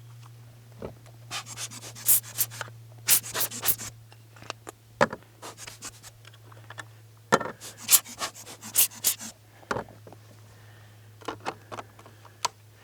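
Irregular rubbing and clicking handling noise, with the loudest clusters of rubs a couple of seconds in and again about halfway through, over a low steady hum.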